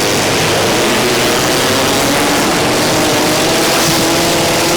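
Demolition derby car engines running hard: a loud, steady, dense engine noise with faint engine tones through it and no distinct crash.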